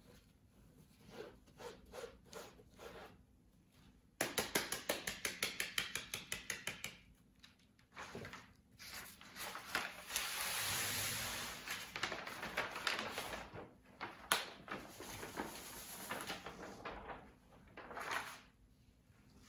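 Damp black powder being granulated through a wooden-framed screen: a quick run of rhythmic scraping strokes, about seven a second, as it is worked over the mesh. Later comes a stretch of kraft paper rustling as the granulated powder is gathered and tipped back into the screen.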